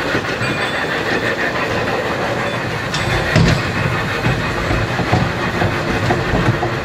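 Indoor kiddie train ride running along its small track: a steady rattle from the cars, with sharp clicks from the wheels over the rail joints, the loudest about halfway through.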